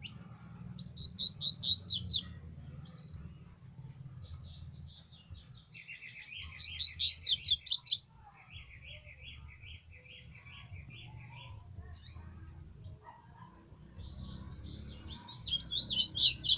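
Caged double-collared seedeaters (coleiros) singing: three bursts of fast, rising-and-falling whistled notes, about a second in, in the middle and near the end, with a quieter run of lower, evenly repeated notes between them.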